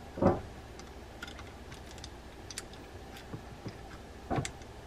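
Small reel parts being handled and fitted into a spinning reel body: scattered light clicks and taps, with a louder knock just after the start and another near the end.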